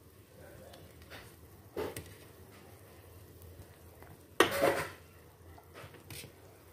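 Metal ladle knocking and scraping against a large stainless stockpot while boiled duck offal is scooped out of the broth. There are a few light clinks and one loud clank about four and a half seconds in, over the faint bubbling of the boiling broth.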